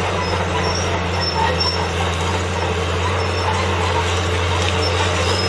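Case 1150G crawler bulldozer working, its diesel engine running with a steady low drone, with short high squeaks now and then.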